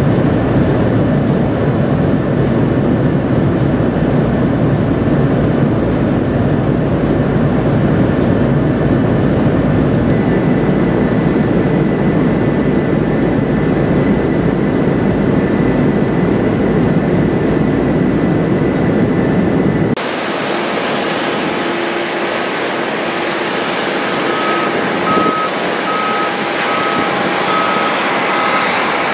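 Steady deep cabin roar inside a Boeing P-8A Poseidon twin-jet in flight. After a sudden cut about two-thirds in, a thinner, hissier jet engine sound of the P-8A on the runway, with a high repeating beep starting soon after.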